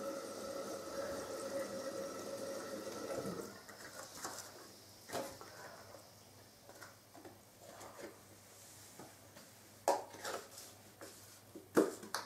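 A tap runs into a sink for about three seconds, then shuts off. Scattered small knocks and clicks follow, a few louder ones near the end.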